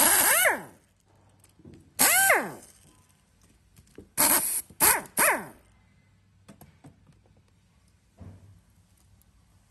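Cordless power screwdriver driving screws inside an electric valve actuator's switch compartment, run in short trigger bursts: the motor whine rises and falls in pitch on each pull. Two longer bursts come near the start and about two seconds in, then three quick bursts between about four and five and a half seconds in, followed by faint clicks of handling.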